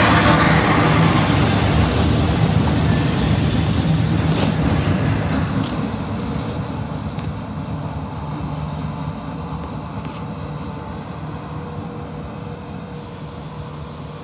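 Freight train's trailer-laden intermodal flatcars rolling past on the rails; the steady wheel-on-rail noise fades as the last cars pull away.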